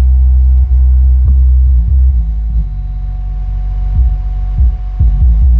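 Vibe Slick 12-inch subwoofer in a sealed MDF box playing loud, very deep sustained bass notes that shift pitch and turn into short stabs about four seconds in. A rattle comes from the amplifier chassis as it plays.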